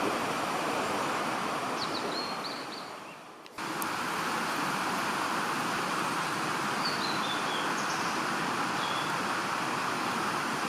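Small birds calling over a steady rushing outdoor noise: a few short high notes about two seconds in, then a short run of falling notes later on. The rushing background dips away and cuts back in suddenly about three and a half seconds in.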